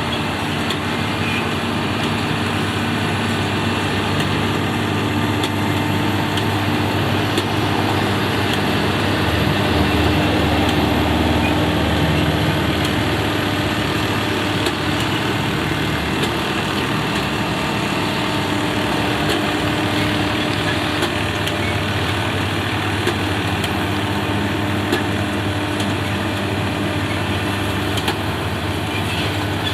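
Engines of potato-harvesting machinery running steadily, a continuous mechanical drone with a few faint ticks and rattles over it.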